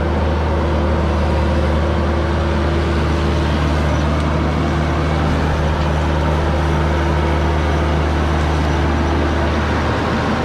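Mini excavator's diesel engine running steadily with a strong low hum and no change in speed.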